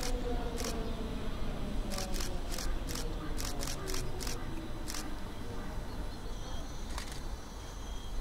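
Berlin S-Bahn class 485 electric train rolling slowly into a station with a low rumble, its whine falling in pitch near the start. Over it, camera shutters click about a dozen times, mostly in a quick run in the middle.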